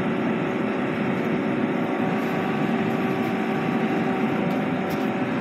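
Rear-loading garbage compactor truck's diesel engine running steadily at close range: a constant drone with a few steady humming tones in it.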